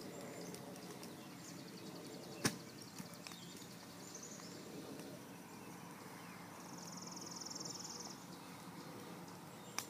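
Brush-pile fire of dry sticks and paper burning faintly, with one sharp pop about two and a half seconds in and another near the end. A high, rapid trill comes in about seven seconds in and lasts about a second.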